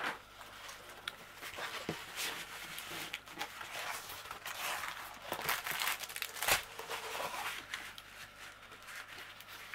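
Rustling and crinkling as a rolled diamond-painting canvas is handled and unrolled flat onto a table, with a few light knocks, the sharpest a little past the middle.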